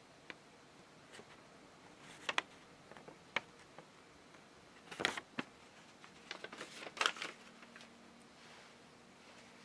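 Paper instruction sheet being handled: a few short, scattered rustles and crackles of folded paper, the sharpest about five and seven seconds in.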